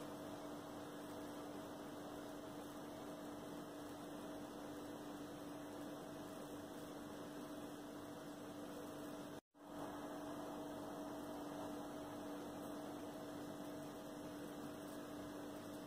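Steady low hum with two constant tones and a faint hiss under it, cutting out for a moment about nine and a half seconds in.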